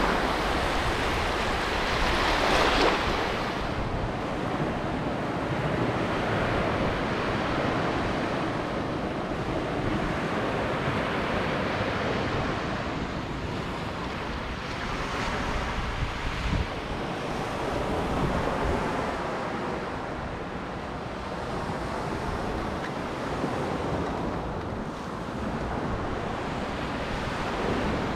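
Sea waves breaking and washing up on a sandy beach, the surf rising and falling in slow swells, loudest about two to three seconds in, with wind buffeting the microphone.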